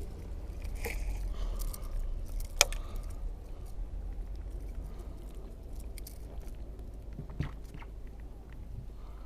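Scattered light clicks and rattles, with one sharp click about two and a half seconds in and a duller knock about seven and a half seconds in, over a low steady rumble.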